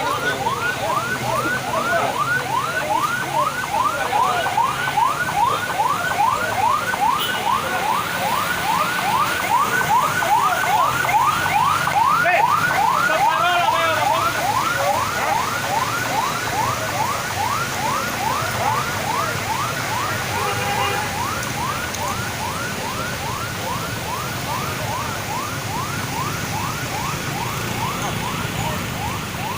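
Electronic siren sounding in fast, repeated rising sweeps, about two or three a second, without a break.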